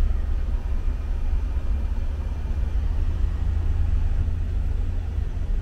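Steady low rumble of a truck's engine and road noise, heard from inside the cab while driving.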